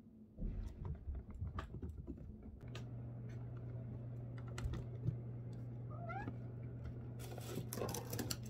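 Cats walking on a hardwood floor, their claws clicking and tapping, with a short rising chirp about six seconds in and a tuxedo cat meowing near the end, over a steady low hum.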